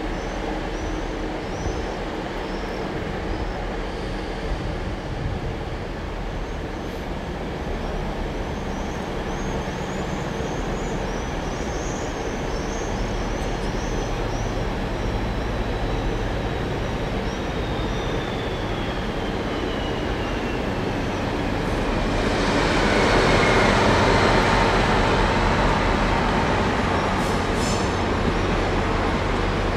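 A train moving in a railway station: a steady rumble and hum. About halfway through a faint whine starts falling in pitch, and near three quarters through a louder rush of noise swells up and stays.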